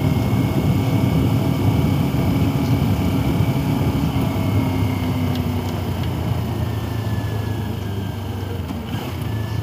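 Motorcycle engine running while riding along, a steady low rumble whose higher hum drops away about six seconds in, leaving a lower note.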